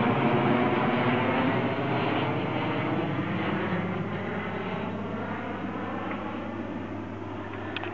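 Airplane flying overhead, a steady rushing engine noise that slowly fades as it moves away.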